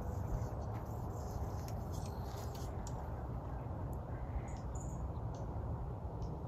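Outdoor background: a steady low rumble with faint scattered ticks and a short high chirp about four and a half seconds in.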